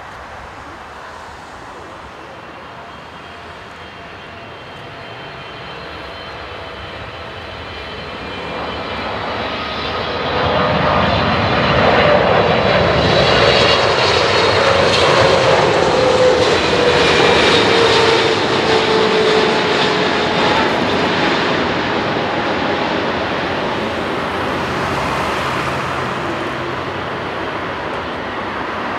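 Boeing 777-300ER's GE90 turbofan engines on landing approach, growing louder as the airliner comes in low and passes close by, with a whine that falls in pitch about halfway through. The sound then eases off as it touches down.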